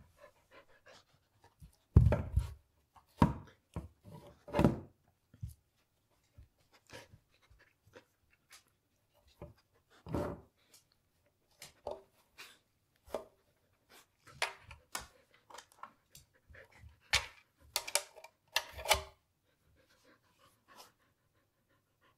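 Samoyed panting and sniffing, with irregular short knocks and scuffs as it noses and paws at a plastic block figure on the carpet. The loudest knock comes about two seconds in, with a cluster of sharp ones near the end.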